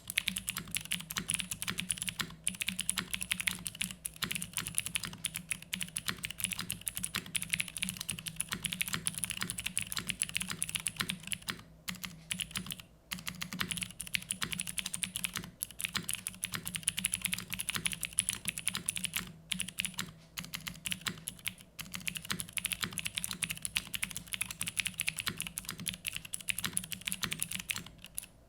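Continuous typing on a mechanical keyboard with clicky Cherry MX Blue switches on a carbon fibre plate, O-ring mounted, with GMK keycaps: a dense stream of sharp clicks broken by a few brief pauses.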